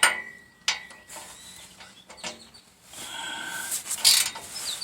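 A ratchet wrench tightening an exhaust clamp nut: a few separate clicks and scraping strokes. A bird chirps briefly near the end.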